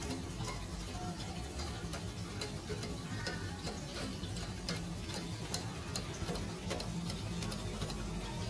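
Pot of soup boiling on the stove while a stainless steel mesh strainer and chopsticks are worked in it to skim off the scum, giving light irregular clicks of metal against metal.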